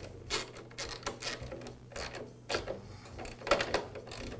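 Socket ratchet wrench clicking as it tightens the belt tensioning screw on a planer's motor mount, along with the clink of the metal socket and extension being handled. A handful of separate, irregularly spaced clicks.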